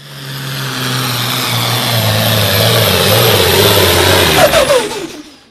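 Light super stock pulling tractor's turbocharged diesel engine running hard at high revs as it passes close by, getting louder over the first second and louder still toward the peak. About four and a half seconds in, the pitch falls sharply and the sound fades out.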